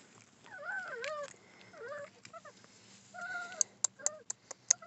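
Four-week-old Dalmatian puppy whimpering in a few short whines that rise and fall in pitch, followed near the end by a quick run of sharp clicks.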